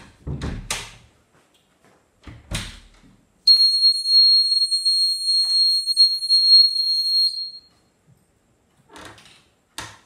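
A door opening with a few handle clicks and knocks, then the homemade door alarm's battery-powered buzzer sounding a loud, steady high-pitched tone for about four seconds before cutting off. The tone means the door-triggered alarm circuit has closed and is working. Soft rustles follow near the end.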